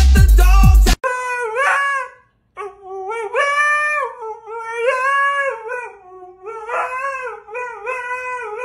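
Electronic music cuts off about a second in; then a Siberian husky howls in a run of wavering, drawn-out yowls, several phrases with short pauses between them.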